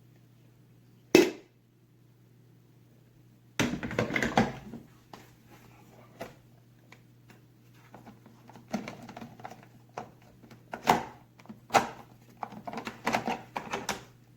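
Plastic parts of a Hamilton Beach FlexBrew single-serve coffee maker being handled: a sharp click about a second in, a brief clatter around four seconds, then a series of separate clicks and knocks in the second half. A faint steady low hum runs underneath.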